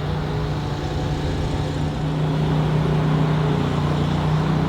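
Motor vehicle engine running steadily, a low even hum that grows slightly louder about two seconds in.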